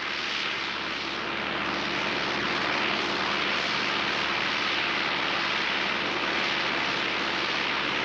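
Ford 7710's turbocharged four-cylinder diesel engine running steadily under ploughing load: a constant drone with a strong, even hiss over it.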